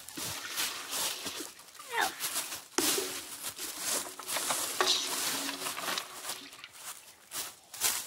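An empty steel water heater tank being tipped up from lying on its side to standing upright. Feet shuffle and rustle through dry leaves, and the tank knocks and scrapes as it is moved. A brief falling squeal comes about two seconds in, and a held low drone runs through the middle.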